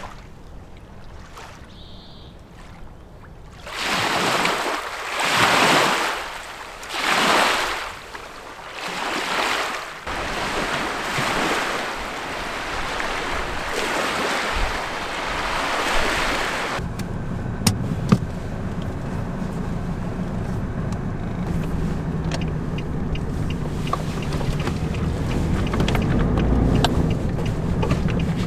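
Quiet at first, then from about four seconds in a series of loud surging washes of wind and choppy lake waves on the shore, settling into a steady rush. About two-thirds of the way through it changes to the low steady drone of a car's engine and road noise heard inside the cabin.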